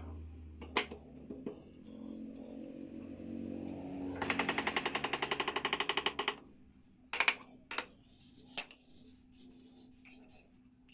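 Workshop tool sounds during chair assembly. A motor hum fades out near the start, followed by a few sharp clicks. About four seconds in, a rapid mechanical rattle of roughly ten pulses a second lasts two seconds, then comes a short series of sharp knocks.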